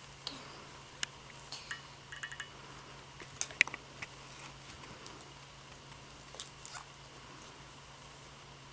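Scattered light clicks and taps of plastic toy doctor-kit pieces being handled, some in quick little clusters, the loudest about three and a half seconds in. A faint steady hum runs underneath.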